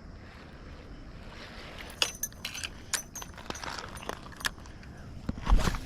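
Fishing tackle clicking and rattling in irregular quick bursts over steady river noise, with a louder knock and thud near the end.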